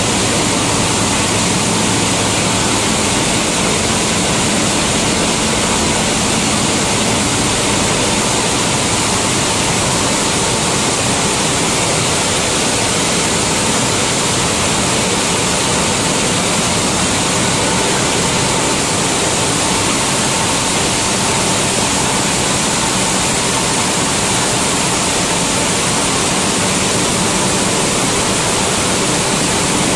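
Wheat flour milling line running: roller mills and pneumatic conveying give a loud, steady mechanical rush and hum with a faint steady tone.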